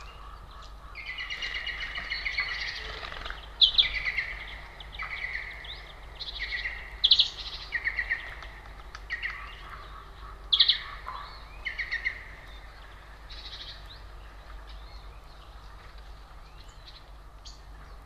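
A small songbird singing a run of short trilled, twittering phrases, each with sharp high notes, from about a second in until about twelve seconds in, then only faint calls remain.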